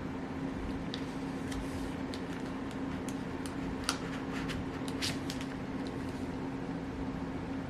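A steady machine hum, like a fan running, with scattered light clicks and taps; the sharpest click comes about four seconds in.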